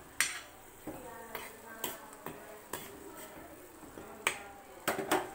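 Stirring utensil scraping and knocking against a cast iron dosa tawa while mixing thick masala puree, giving sharp, irregular clicks, about eight in a few seconds.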